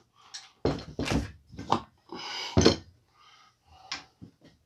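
Gear being handled and set down on a cloth-covered table: about five short knocks and thumps spread over a few seconds, with a brief rustle in the middle as things are shifted, the last knock as the crossbow is moved into place.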